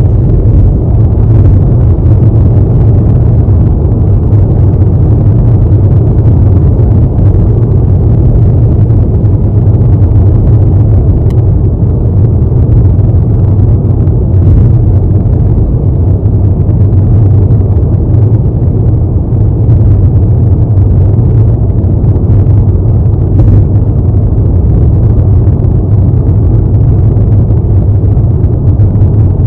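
Steady, loud low rumble of a car's engine idling while it waits at a red light.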